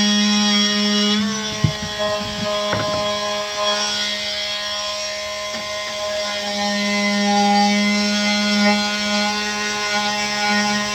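Oscillating multi-tool running with a steady buzz, briefly dipping in pitch with a few knocks between about one and three seconds in as the blade bites into the cut.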